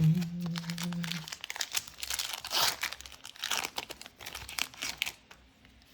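Foil trading-card booster pack wrapper crinkling and tearing as it is pulled open, a dense run of crackles over several seconds.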